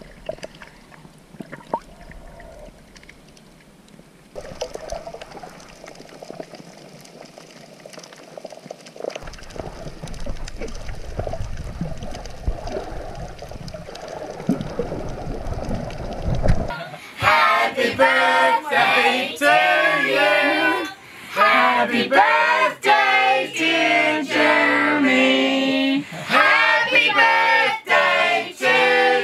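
Muffled underwater water noise while snorkelling, growing louder about nine seconds in. About seventeen seconds in, a group of voices starts singing loudly, with held notes.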